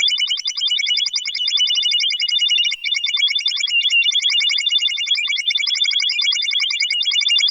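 Synthesized sci-fi computer interface sound effect for an alien spaceship: a fast, unbroken chatter of high electronic bleeps, many a second, warbling slightly in pitch.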